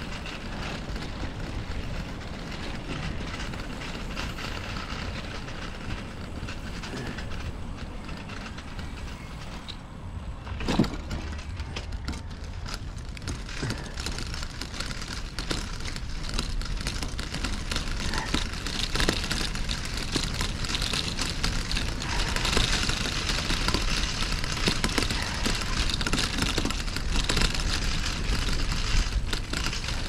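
Bicycle riding along a street: steady tyre and wind noise, which grows louder and rougher about halfway through as the tyres move from smooth asphalt onto brick paving. A single sharp knock sounds about eleven seconds in.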